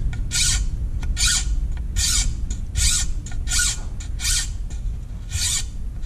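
A Nicholson slim taper triangle file rasping back and forth across the steel saw blade of a Victorinox Hiker Swiss Army knife, cutting a new tooth and wearing its flat top down to a point. There are about seven even strokes, roughly one every three-quarters of a second, with a slightly longer pause near the middle.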